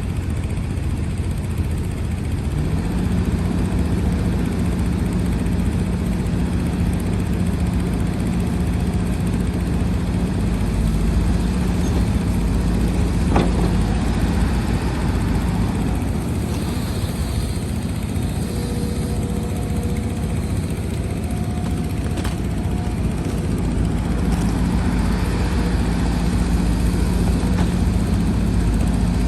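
Diesel engine of heavy earthmoving machinery running steadily with a low rumble and hum, with two sharp knocks partway through.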